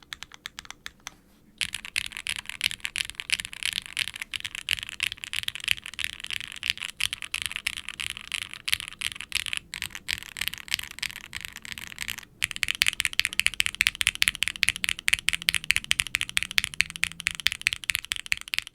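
Fast typing on a Qwertykeys QK60 R3 mechanical keyboard with custom Gateron frankenswitch linears, a carbon fiber plate and GMK ABS keycaps: a dense stream of soft, muted clacks as the keys bottom out. The keystrokes are lighter and sparser at first, then come thick and fast, with one short pause about two-thirds of the way through.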